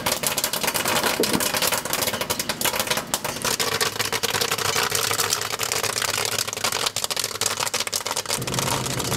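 Popcorn popping in a popcorn machine's kettle: a dense, rapid crackle of pops. Near the end a low steady hum comes in beneath it.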